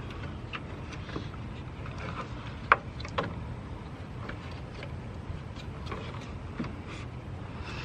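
Scattered light plastic clicks and knocks from hands working at a car's radiator cooling fan assembly and its clips, the sharpest about two and a half seconds in, over a steady low rumble.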